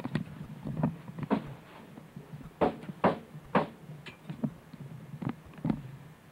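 Footsteps on a hard floor: a string of uneven knocks, the loudest three close together about halfway through.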